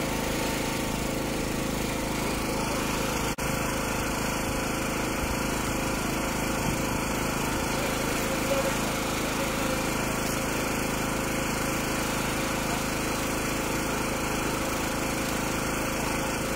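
Electric demolition hammer with a chisel bit hammering steadily into reinforced concrete, chipping away the edge of an opening around the rebar. It breaks off for an instant about three seconds in.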